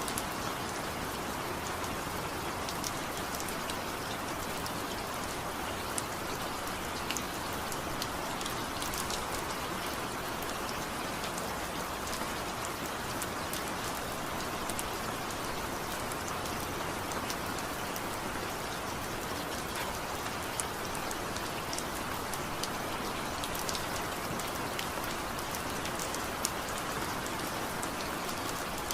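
Steady rainfall with no thunder: an even hiss of rain with many individual drops ticking sharply on a surface throughout.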